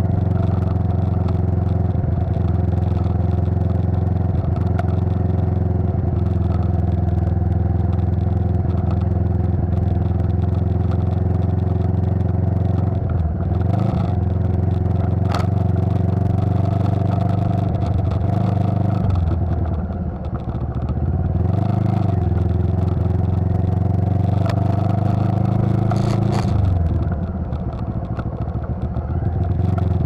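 Motorcycle engine running steadily while riding, its note dipping and picking up again a few times as the throttle eases off and reopens.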